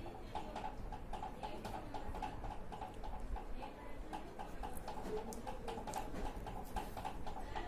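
Steady rhythmic ticking, about four to five ticks a second, with scattered light crackles and clicks from electrical tape being pulled and pressed by hand.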